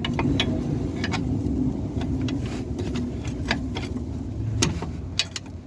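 Irregular metallic clicks and knocks as the upper control arm is forced up and down, its bushings and ball joint worn to the point of play. A steady low engine rumble runs underneath.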